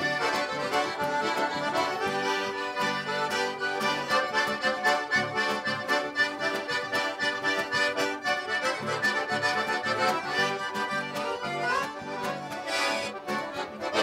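Lively instrumental accordion music: a small diatonic button accordion (gaita) played together with a piano accordion and a strummed acoustic guitar, over a steady rhythm of bass notes.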